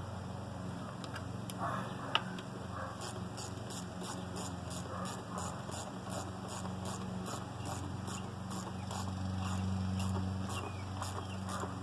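Hand ratchet clicking in short strokes, two to three clicks a second, as the intake manifold bolts on an LS V8 are tightened down, over a low steady hum.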